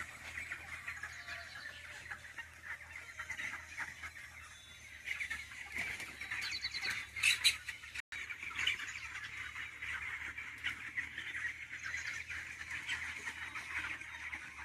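A flock of chickens in a poultry shed chirping and clucking continuously, many birds at once, with one louder squawk about seven seconds in. A low steady hum runs underneath.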